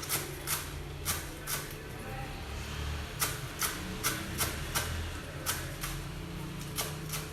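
Kitchen knife chopping coriander leaves on a cutting board: quick, regular strokes about two to three a second, with a brief pause about two seconds in.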